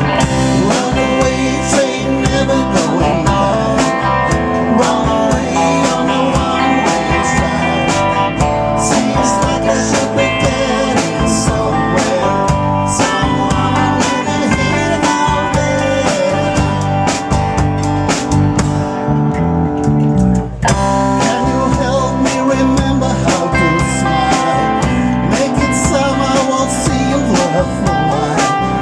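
Live band playing a rock song on electric and acoustic guitars and keyboard through a PA, with a steady beat. The music drops out briefly about two-thirds through, then picks up again.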